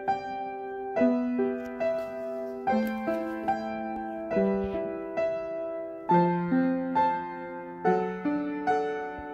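Background piano music: a slow, gentle melody with chords struck about once a second.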